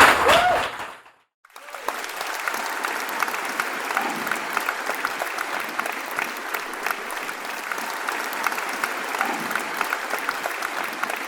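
Audience applauding steadily, starting about one and a half seconds in after a brief silent gap, with a short loud sound at the very start.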